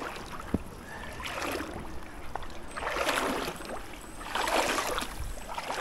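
Legs wading knee-deep through a flowing creek, water swishing and splashing in surges about every second and a half, one surge with each stride.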